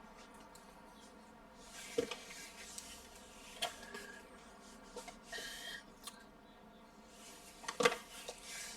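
Soft rubbing and scraping with a few light taps and knocks, about a second apart near the start and clustered near the end: hands and tools working on an iMac during a screen replacement.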